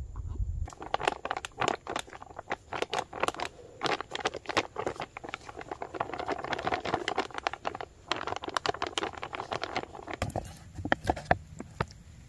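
Foil-lined freeze-dried meal pouch crinkling and rustling as it is handled and opened, with sparser clicks near the end.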